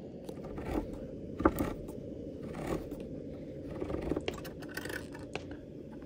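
Knife scraping minced garlic into a skillet, then a hand-crank can opener cutting around a can lid: a run of quick metallic clicks and scrapes.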